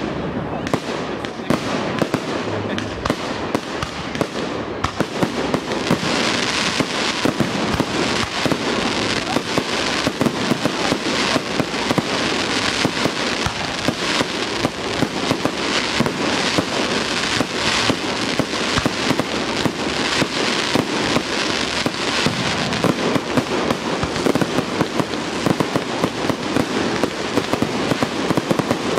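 Fireworks display: a fast, unbroken string of bangs and crackling, growing denser about five seconds in.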